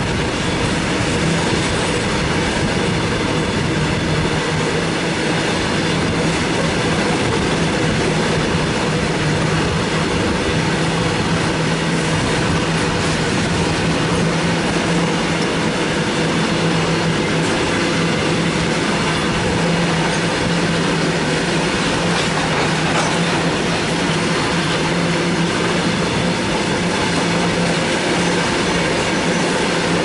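BCNA covered freight wagons of a long freight train rolling past close by: a steady noise of steel wheels running on the rails.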